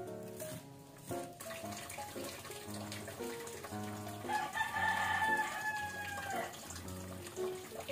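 A rooster crowing once, a long call of about two seconds that drops in pitch at the end, over background music.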